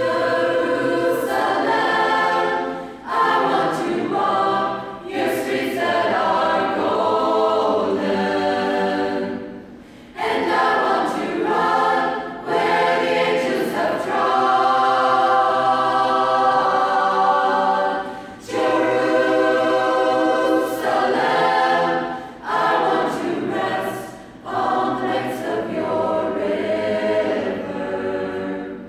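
A choir singing a cappella, with no instruments, in long held phrases separated by short breaks.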